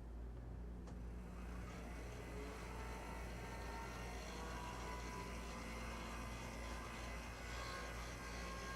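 HO-scale brass model of a PRR FP7 diesel running on track, its small electric motor and drive gears whirring steadily over a constant low hum. The whir comes up about a second in.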